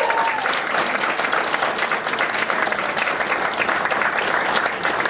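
Audience applauding: many hands clapping steadily and densely, greeting an award announcement.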